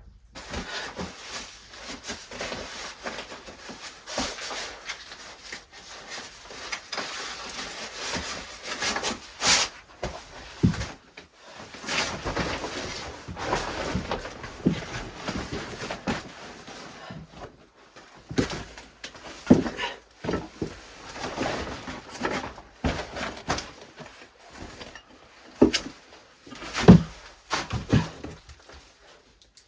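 Irregular knocks, clunks and rustling of things being handled and moved about in a small enclosed space, with a few louder thuds, the loudest near the end.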